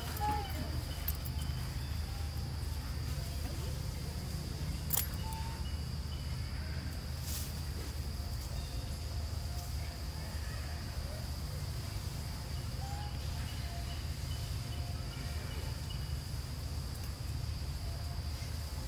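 Insects trilling in one steady high tone, over a steady low rumble, with two sharp clicks about five and seven seconds in.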